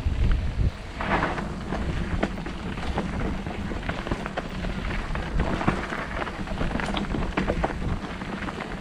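Mountain bike rolling fast down a dirt singletrack: tyres crunching over dirt, stones and dry leaves, with many quick clicks and knocks as the bike rattles over bumps. Wind rumbles on the microphone, strongest in the first second.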